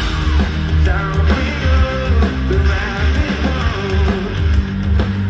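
Live rock band playing loud through a concert PA: electric guitars, bass and drums come in all at once at the start, with a vocal line over them.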